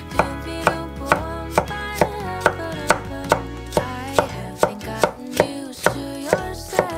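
Chef's knife chopping a pale green vegetable into thin strips on an end-grain wooden cutting board: steady, even knocks of the blade on the wood, about two a second.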